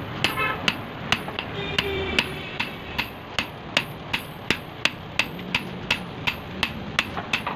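Hand hammer forging a hot axe head on a steel block anvil: steady, rhythmic strikes at about three a second, some with a short bright metallic ring.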